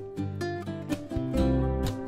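Background music led by plucked acoustic guitar, growing fuller and louder with deep bass notes about a second in.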